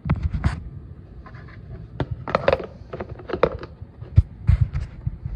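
Fingers handling a red plastic food container right at the microphone: irregular scrapes, rustles and clicks, with a sharp knock about four seconds in.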